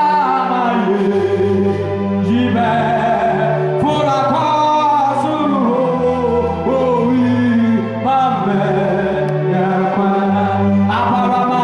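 A man singing a worship song into a microphone over sustained accompaniment chords that change every second or two.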